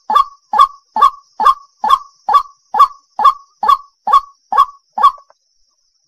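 White-breasted waterhen calling: a harsh, croaking note repeated evenly about twice a second, a dozen times, stopping about five seconds in.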